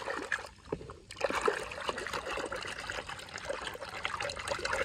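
Water in a shallow tub sloshing and bubbling as a sand-covered toy car is swished about underwater by hand to rinse it, with many small bubbling blips and a brief lull about a second in.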